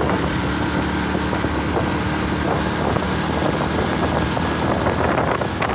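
Wind rushing over the microphone of a moving open vehicle, with a steady engine hum underneath.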